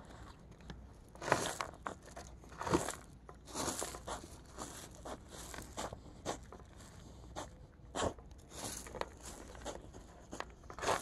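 A white Jindo-mix dog chewing a bone, with irregular crunches about a second apart.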